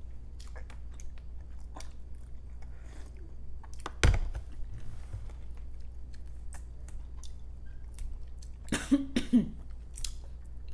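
Close-up chewing with small wet mouth clicks while eating balut, a sharp thump about four seconds in, then a few coughs near the end as the vinegar from the broth catches in the throat.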